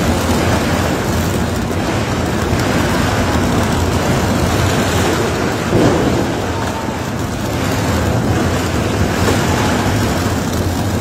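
Tunnel boring machine cutting through the last of the rock wall just before breakthrough: a steady heavy rumble with a hiss, mixed with the spray of water hoses on the rock face. There is a brief louder surge about six seconds in.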